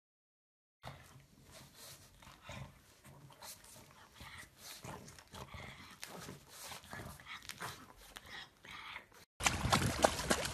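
A pug sleeping on its back makes soft, irregular little dog noises, beginning about a second in. Near the end there is a sudden, much louder splashing of water as a pug swims in a pool.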